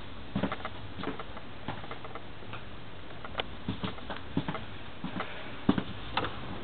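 Irregular light clicks and knocks, footsteps and camera handling, while walking along the corridor of a passenger coach standing at a station, over a low steady background hiss.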